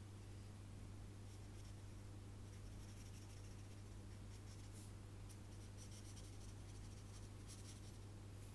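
Faint scratching of a felt-tip marker colouring on sketchbook paper in short strokes, over a steady low hum.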